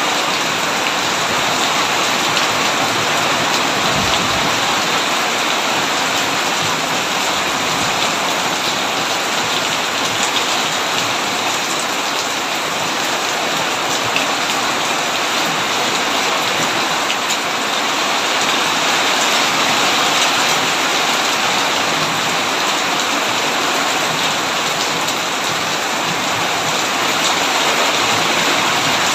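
Heavy rain falling steadily on a tin roof, a dense, even patter.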